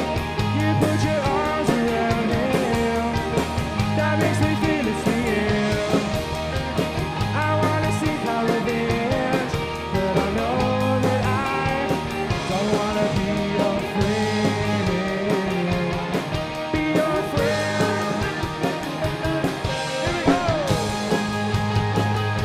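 Indie rock band playing live: electric guitars over bass guitar and drums in an instrumental passage, the bass changing note every couple of seconds.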